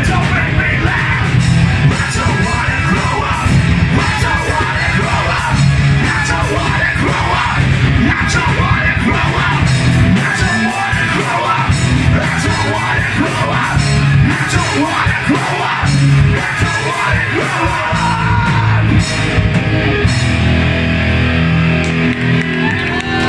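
Live punk rock band playing: electric guitars, bass guitar and drums through a pub PA, with the singer yelling the vocals into a microphone. Near the end the playing settles into long held, ringing notes.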